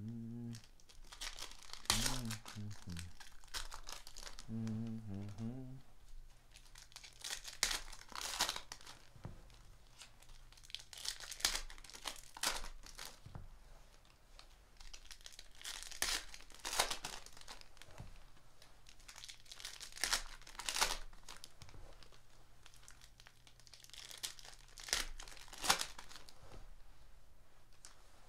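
Foil trading-card pack wrappers crinkling and tearing open, one pack after another, with a loud spell of crackling about every four to five seconds.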